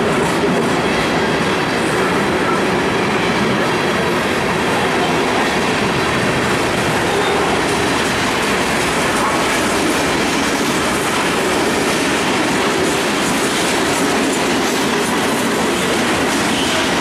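Freight train of covered hopper cars rolling past close by: steel wheels running on the rails, loud and steady throughout.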